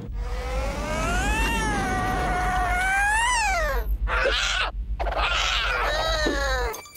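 Cartoon cat caterwauling: one long, drawn-out yowl that rises and falls twice, then two shorter, harsher screeches after a brief break, over a steady low rumble that cuts off near the end.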